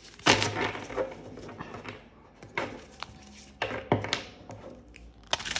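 A deck of oracle cards being handled and shuffled: cards sliding and rustling against each other in several short bursts, with small taps and clicks.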